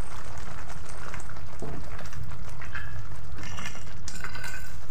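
Blended wet spice paste frying gently in oil in a steel wok, with a steady low hum underneath. A wooden spatula stirs through it briefly about three and a half seconds in.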